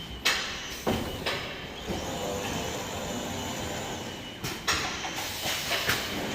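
Glass screen printing machine for shower enclosure panels in operation: a steady mechanical run for about two seconds in the middle, with several sudden sharp sounds before and after it.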